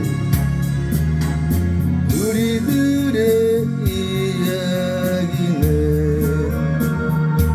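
Music: a slow Korean song with guitar accompaniment under a sustained melody line that glides between long held notes.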